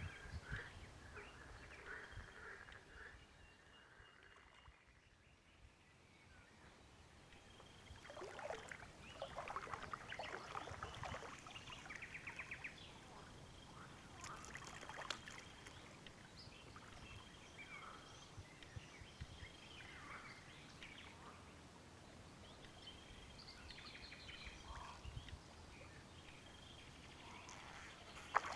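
Faint birdsong: many short chirps and trills from several small birds, busiest about a third of the way in, over quiet outdoor background noise.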